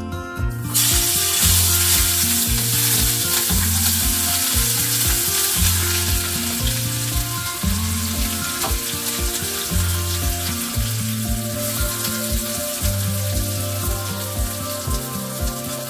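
Food dropped into hot oil in a frying pan, sizzling suddenly about a second in and frying steadily as it is stirred, over background music with a steady bass line.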